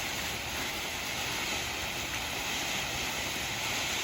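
A 500-gram spinning firework fountain burning with a steady, even hiss of spraying sparks.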